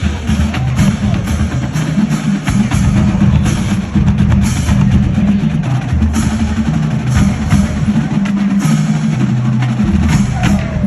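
Loud marching band music: drums striking over low, held notes that change every second or so.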